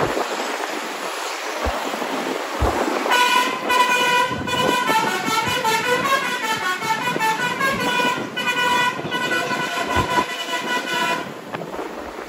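Tour bus's multi-tone telolet horn playing a short stepping melody for about eight seconds over road and wind noise. The horn starts about three seconds in and cuts off near the end.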